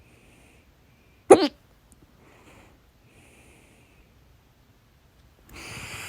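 A person's single loud hiccup, a short sharp voiced 'hic', about a second in, between faint breaths. Near the end a long, noisy breath out begins.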